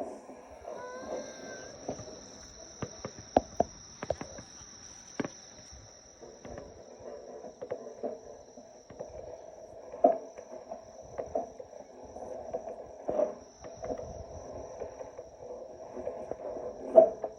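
Fireworks bursting: several sharp bangs at irregular intervals, the loudest near the end, over the steady high chirring of crickets.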